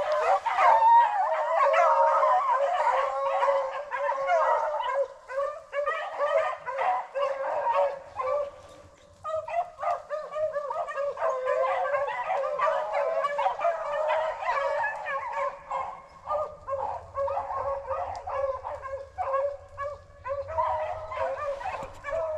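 A pack of rabbit hounds baying together, many voices overlapping in a continuous chorus as they run a rabbit. The chorus eases off briefly about nine seconds in, then picks up again.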